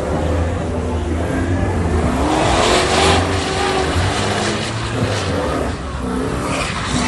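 A motor vehicle's engine running, its pitch rising and falling, with a rushing noise that swells midway.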